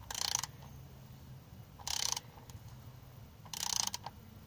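Ratchet wrench clicking in three short bursts, each back-swing of the handle ratcheting the pawl, as the oil filter housing cap is snugged down a little at a time.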